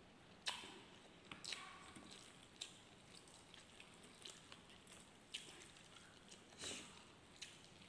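Faint, scattered wet clicks and smacks of eating by hand: lips smacking while chewing and fingers pulling apart lechon (roast pork). The sharpest click comes about half a second in.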